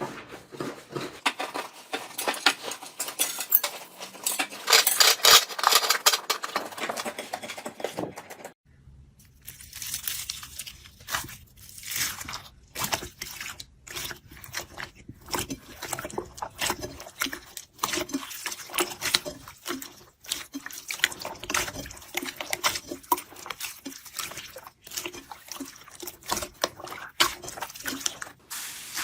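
Slime being squished and stretched by hand, giving dense runs of small wet clicks and pops. They are loudest in the first few seconds, then drop out briefly about eight seconds in before going on with a changed sound.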